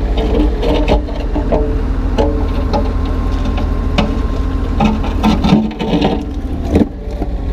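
Kubota U35-3 mini excavator's diesel engine running under hydraulic load while chunks of broken concrete are dropped and knock against each other and the trailer, with a cluster of knocks in the second half. The large piece lands softly and does not crack.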